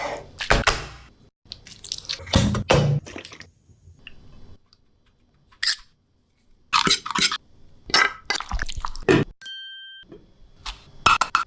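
Kitchen food-prep sounds: a series of separate knocks and thunks of ingredients and utensils, with quiet gaps between them. A short steady beep sounds about two-thirds of a second long, a little before the end.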